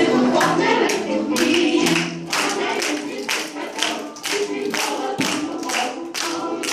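An audience of small children clapping along in a steady rhythm, about two to three claps a second, to a song with group singing.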